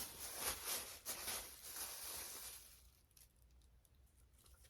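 Rustling and light knocks of small toys being handled and sorted, dying away after about two and a half seconds.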